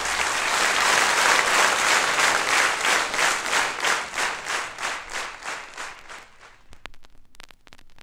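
Audience applause at the end of a song, dying away over about six seconds. It is followed by faint scattered clicks of a vinyl record's surface noise.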